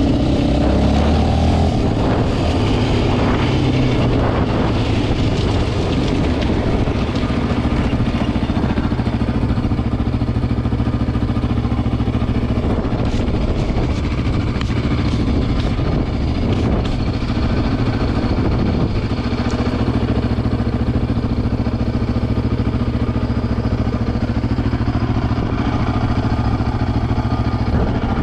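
Yamaha Raptor 700 ATV's single-cylinder four-stroke engine, pulling under load for the first couple of seconds, then idling steadily.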